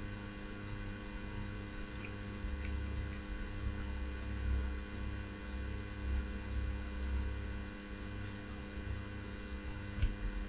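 Steady electrical hum from bench equipment, with an uneven low rumble and a few faint ticks, during hand soldering on a circuit board.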